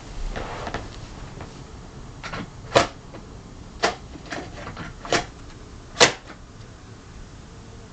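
A handful of sharp knocks and clacks of hard objects being handled, irregularly spaced about a second apart; the loudest come about three seconds in and about six seconds in.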